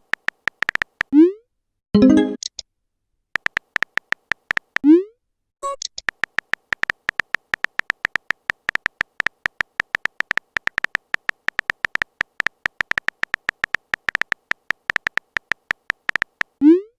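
Text-messaging app sound effects: long runs of rapid, tonal phone-keyboard typing clicks, broken by short rising 'bloop' message pops three times and a louder message tone about two seconds in.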